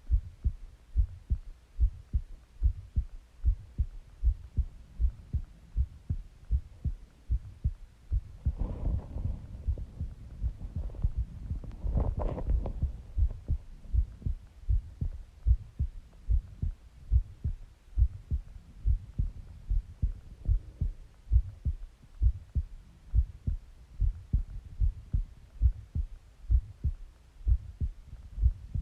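Human heartbeat picked up close against the body: steady, regular low thumps. Between about nine and thirteen seconds in, a louder rushing body sound rises over the beats.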